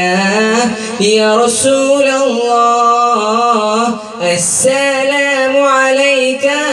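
A young man's solo voice singing an Arabic devotional song (nasheed) over a PA system. He holds long, wavering, ornamented notes, with a short break for breath about four seconds in.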